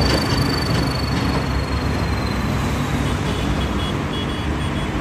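Swaraj 855 tractor's three-cylinder diesel engine running as it pulls a trolley through road traffic, a steady low rumble. A faint high tone slowly falls in pitch, and a few short high beeps come about three seconds in.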